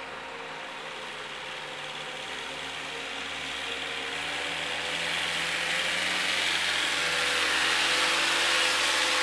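Engine of a truck-mounted forklift carrying a pallet of sod, running steadily and growing louder as the forklift drives closer.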